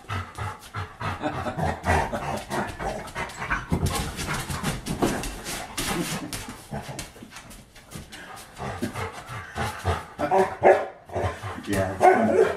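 A dog barking repeatedly in short, irregular bursts, loudest near the end.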